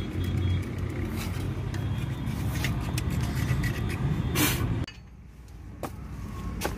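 Steady low hum of an engine idling, with scattered sharp metallic clicks and taps from hand tools working at the machine. About five seconds in the hum cuts off suddenly and only fainter clicks remain.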